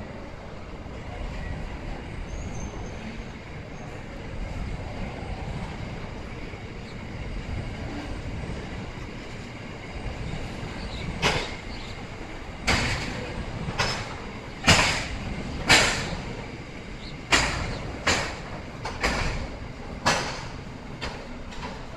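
Loaded coal wagons of a freight train rolling past with a steady rumble. About halfway through, a run of about ten sharp bangs begins, roughly one a second, each with a short ringing tail.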